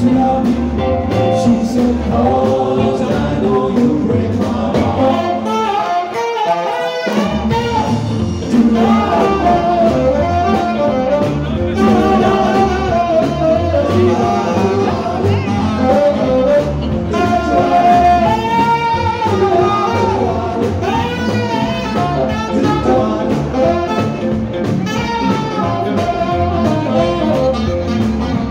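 Live band music: several male singers at microphones singing over saxophone, drums and upright bass. About six seconds in, the bass and drums drop out for a moment, leaving the voices, then come back in.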